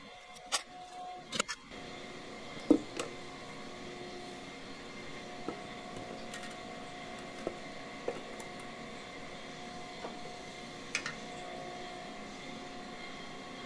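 Scattered short metal clinks and knocks of hand tools and parts during the teardown of a 604 crate engine, over a steady shop hum.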